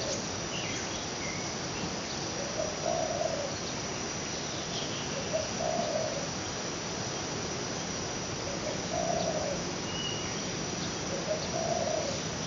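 A dove cooing four times, about every three seconds, over a steady high drone of crickets or other insects, with a few faint short bird chirps.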